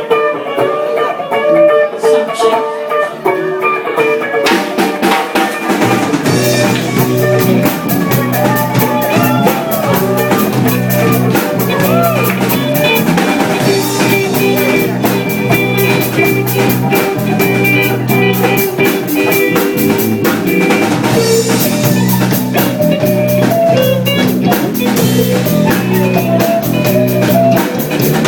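Band music with guitar and drums; drum hits come in about four seconds in and a bass line joins shortly after, then the full band plays on steadily.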